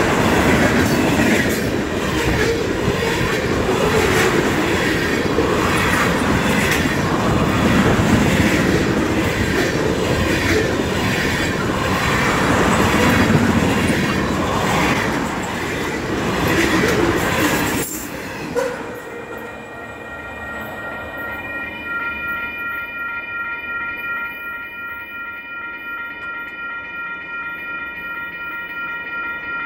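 Ethanol tank cars of a freight train rolling past at speed, wheels clacking rhythmically over the rail joints and crossing. The train noise cuts off suddenly about 18 seconds in, leaving a grade-crossing bell ringing in a steady, regular rhythm as the crossing gate rises.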